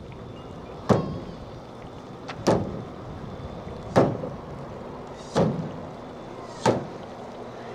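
Sharp percussive strikes, five of them evenly spaced about a second and a half apart, each dying away quickly.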